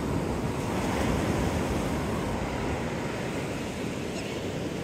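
Gulf of Mexico surf breaking and washing up the beach: a steady rush of waves that swells briefly about a second in.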